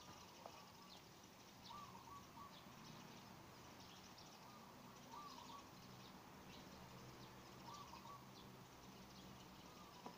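Faint outdoor ambience, near silence: a bird repeating a short call of a few notes every two to three seconds, with fainter high chirps and a faint low hum underneath.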